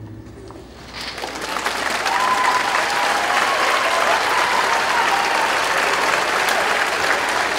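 Audience applause breaking out about a second in and holding steady.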